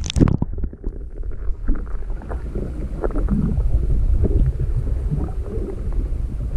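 A camera plunged into lake water with a splash, then held underwater: a muffled low rumble with scattered faint knocks, the higher sounds cut away by the water.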